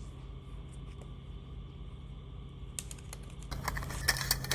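A quick run of light clicks and taps beginning about three seconds in, over a steady low hum.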